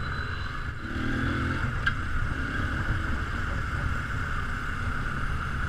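Keeway Cafe Racer 152's single-cylinder engine running steadily while riding, with wind rushing over the microphone.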